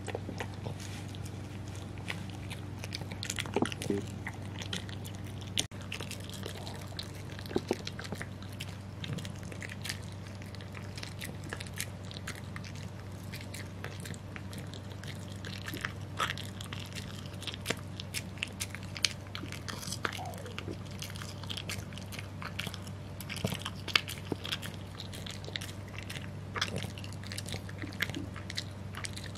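A French bulldog chewing a dog dental chew, with irregular crunches and wet clicks of its jaws and teeth all through.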